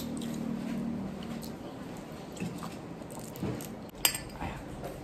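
Two drinking glasses clinked together in a toast: one sharp clink with a short ring about four seconds in, after soft eating noises.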